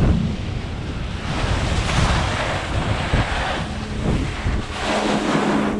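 Wind buffeting an action camera's microphone during a ski run, with two hissing surges of ski edges scraping across the snow as the skiers slow down.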